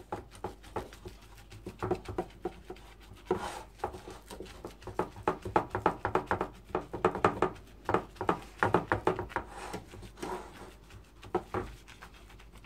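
Plastic-gloved hands pressing and patting soft butter dough into a metal cake tin: a run of quick, soft pats and squelches with light crinkling of the gloves, busiest in the middle.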